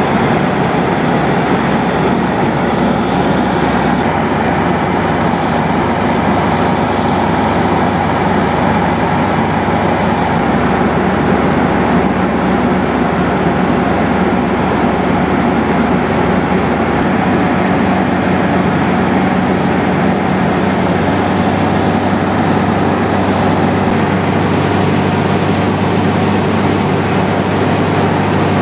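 Steady drone of a Pioneer 200 light aircraft's engine and propeller in cruise, mixed with airflow noise, as heard inside the cabin.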